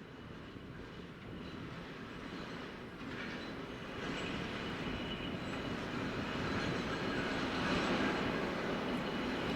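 DSB SA S-train with GTO-inverter traction equipment running, its rumble growing steadily louder, with faint steady high tones above it.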